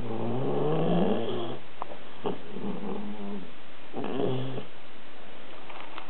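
Siberian husky snoring in its sleep: three low, drawn-out snores, the longest at the start, another about two and a half seconds in and a shorter one about four seconds in, with a couple of soft clicks between.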